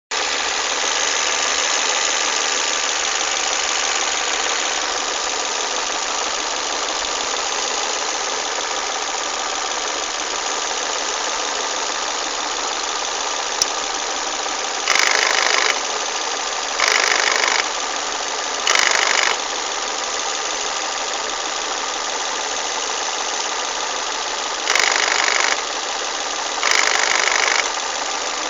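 Volvo S40 1.8-litre, 122 PS petrol engine running with a broken VVT (variable valve timing) wheel, making strange mechanical noises. About halfway through, the sound grows louder five times in short patches of about a second each.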